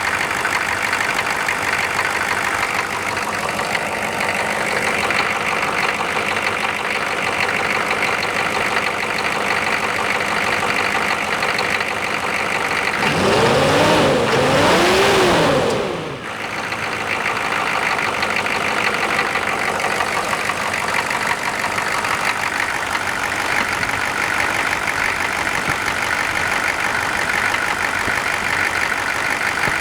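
Diesel engine of a Chevrolet Suburban running cold, with the engine fan roaring steadily. The fan clutch stays engaged instead of disengaging on the cold engine, which the owner calls too loud. About halfway through the engine is revved up and back down twice in quick succession.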